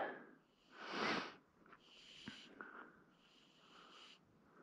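A person breathing close to the microphone: a breath out about a second in, then quieter breaths through the nose every couple of seconds.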